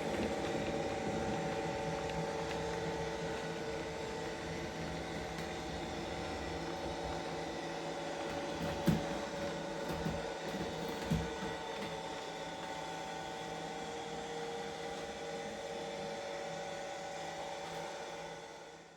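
An OO-gauge model Class 55 Deltic's DCC sound decoder playing its Deltic diesel engine sound through a small onboard speaker: a steady engine drone with a few short clicks, fading out at the end.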